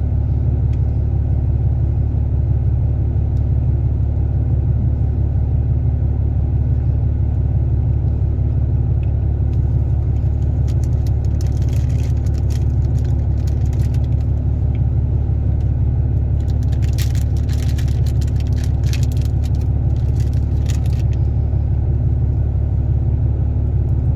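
A steady low background rumble, with two spells of crisp crackly clicks partway through and again later, as from chewing a crunchy cookie close to the microphone.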